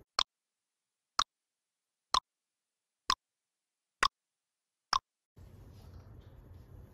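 Countdown-timer sound effect: six short clock-like ticks, one a second, over dead silence.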